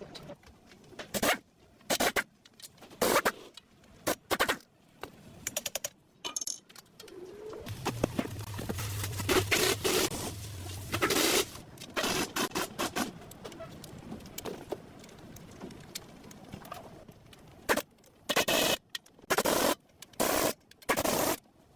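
Repair work on a car's front wheel hub: a run of short, sharp knocks and bursts, some in quick clusters, with scraping in between and a steadier stretch with a low hum partway through.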